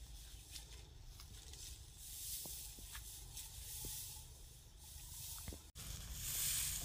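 Faint rustling hiss of dry grass and straw, with a few soft ticks; it grows louder about two seconds in and again near the end.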